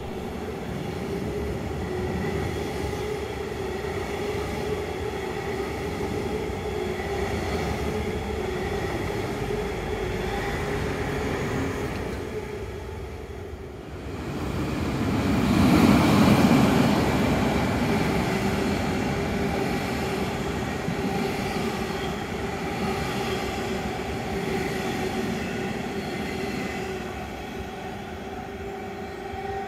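Double-deck regional trains running on the main line, heard as steady wheel and rail noise. The sound swells to its loudest about halfway through as a train passes close by.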